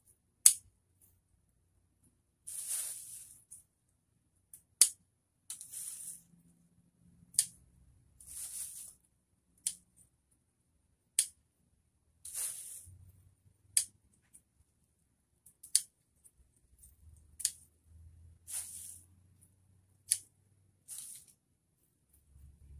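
Scissors snipping mint stems, about nine sharp single snips spaced a second or two apart, alternating with short rustles of the cut mint leaves being handled.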